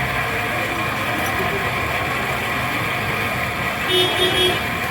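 Busy street ambience with traffic running and voices. About four seconds in, a vehicle horn gives a quick double or triple beep lasting about half a second.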